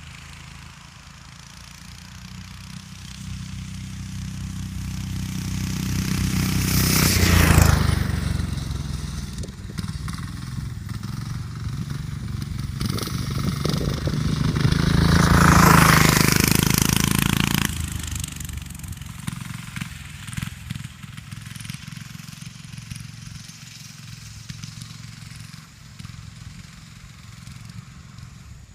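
Diesel go-kart engine at top speed passing by twice, each pass building to a loud peak and fading away, the first about seven seconds in and the second about sixteen seconds in.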